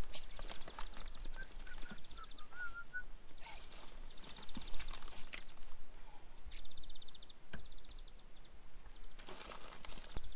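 Birds calling: several short, fast, high trills and a few small chirps in the first few seconds. Two sharp knocks come in the second half.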